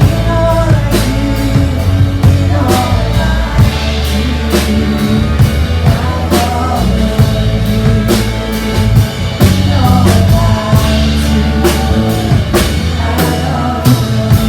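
Loud band music with a drum kit, a bass line and guitar, and a voice singing over it; the drum hits come at a steady beat.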